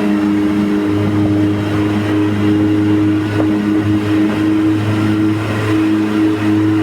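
An engine running steadily at a constant speed, a low hum with a few higher tones that fade in and out.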